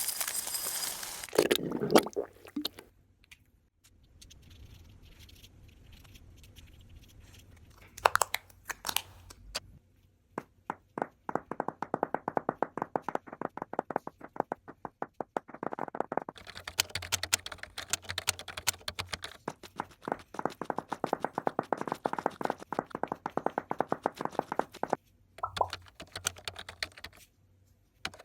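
Foley sound effects made with makeup items: a short swishing rustle, a few scattered clicks, then two long runs of fast, dry clicking at about ten clicks a second with a short break between them.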